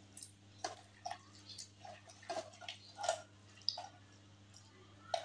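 A hand squeezing and mashing chicken blood mixed with bread in a steel bowl: about ten soft, irregular wet squelches, working the mixture until no lumps remain.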